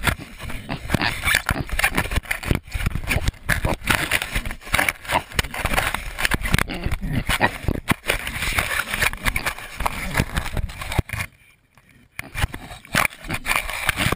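Pigs rooting at and mouthing a GoPro camera: close, irregular scraping and knocking against the camera body with snuffling, pausing briefly near the end before resuming.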